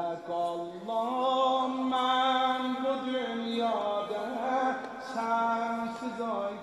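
A man's voice singing a long, drawn-out melismatic line of a Shia lament (mersiye), holding notes that rise and fall slowly, with a brief dip about four seconds in.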